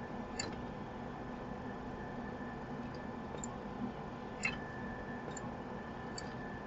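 Steady equipment hum and hiss with a thin, constant high whine, broken by about five brief, faint clicks spread through it.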